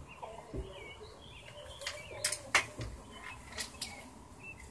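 Small birds chirping in short repeated calls, with a few sharp clicks and taps, the loudest about two and a half seconds in.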